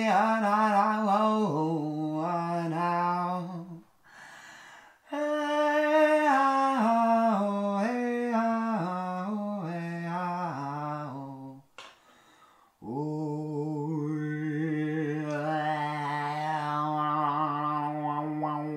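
A man's vocal warm-up: two sung runs that step down the scale, with a breath between, then one long note held at a steady pitch for the last few seconds.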